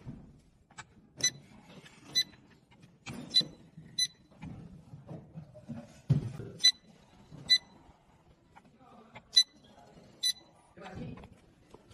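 Handheld inkjet printer beeping: short, high electronic beeps in pairs about a second apart, four pairs in all, as the printer rolls through its prints. Low voices murmur in the background.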